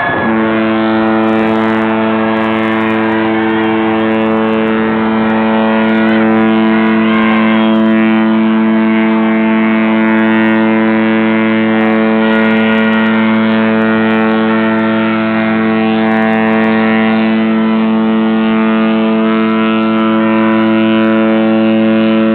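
Carnival Ecstasy cruise ship's air horn sounding one long, loud, steady blast of over twenty seconds, a single deep tone with strong overtones that starts and stops abruptly.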